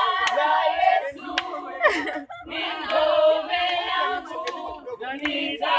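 A group of voices singing or chanting together, with several sharp claps among them.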